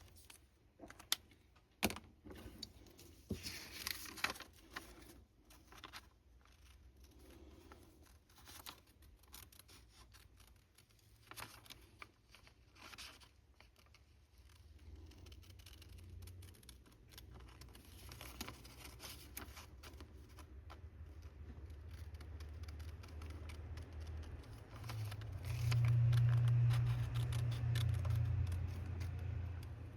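Paper being cut with scissors and handled, with short snips and scratchy rustles through the first half. A low steady hum builds from about halfway and is loudest near the end.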